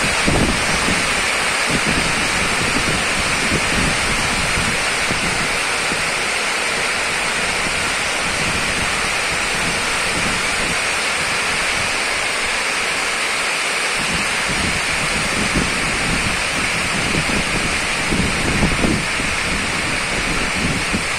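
Heavy rain falling steadily in a constant hiss, with gusts of wind buffeting the microphone now and then, most in the last few seconds.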